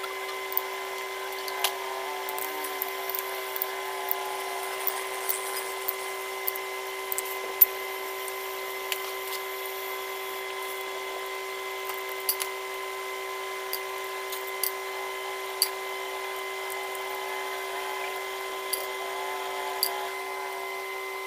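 Scattered sharp metallic clinks and taps of hand tools and parts against a bare Komatsu four-cylinder engine block under overhaul, over a steady hum. The loudest clink comes about seven and a half seconds in.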